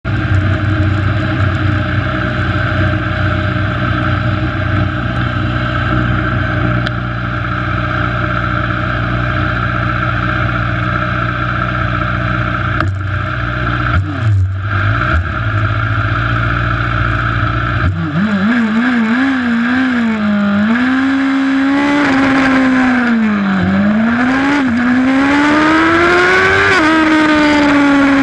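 Superbike engine idling steadily, heard from on the bike; about eighteen seconds in it pulls away and revs, its pitch rising and dropping several times as it accelerates and shifts.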